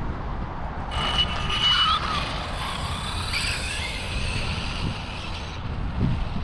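Custom Traxxas Bandit RC car on a 6S LiPo running at full speed: a high-pitched electric motor and drivetrain whine comes in about a second in, bends up and then down in pitch, and cuts off after about five and a half seconds. Wind buffets the microphone throughout.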